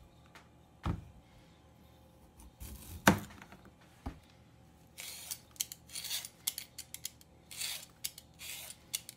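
A thump on the cutting board about a second in, then a kitchen knife cutting a round off a daikon radish with one sharp knock on the board about three seconds in. From about five seconds in, a blade shaves the daikon's skin off in short rasping strokes, two or three a second.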